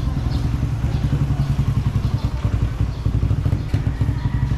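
A motor vehicle engine running close by, a steady low throb with a rapid pulse.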